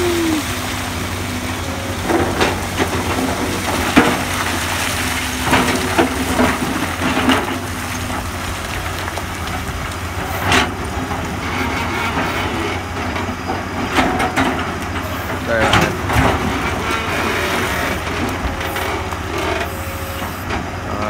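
Komatsu PC200 excavator's diesel engine running steadily while its bucket digs into a pile of interlocked large and small rocks. Irregular sharp knocks and stone clatter come as the bucket strikes and drags the rock, the loudest about four seconds in.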